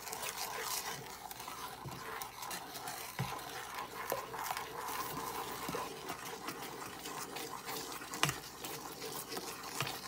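Wooden spoon stirring a thick chocolate, sugar and milk mixture in a metal saucepan, scraping the bottom and sides in a steady swish, with a few knocks of the spoon against the pan, the loudest about eight seconds in.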